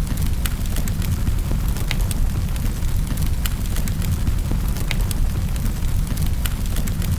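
Fire in a fireplace crackling: scattered sharp pops and snaps over a steady low rumble of the burning.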